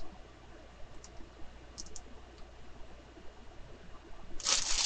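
Small handling sounds at a desk: a few faint light clicks, then a louder burst of rustling near the end.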